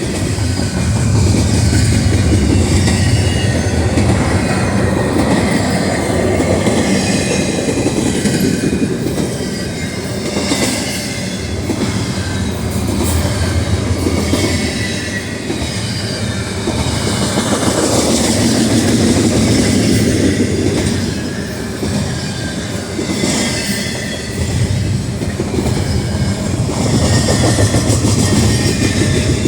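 Double-stack container freight train rolling past, its wheels clattering over rail joints with a steady rumble and occasional faint wheel squeal.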